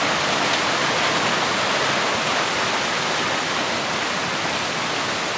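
Heavy rain mixed with hail pouring down, a steady, dense hiss.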